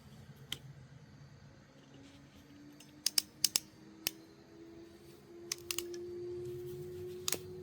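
Hand wire crimping tool clicking as it crimps wire connectors: one sharp click about half a second in, a quick run of sharp clicks around three to four seconds, and a few more later on, over a faint steady hum.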